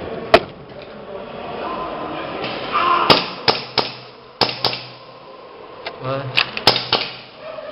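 Airsoft gunfire: about nine sharp single cracks at irregular spacing, one early on, a cluster of several around three to five seconds in, and a few more near the end.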